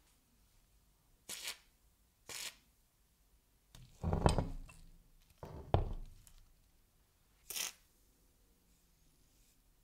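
Short hisses of rust remover spray from an aerosol can, twice near the start and once near the end. In between come two louder clunks with scraping as the metal tap wrench is handled and set on the wooden workbench; these are the loudest sounds.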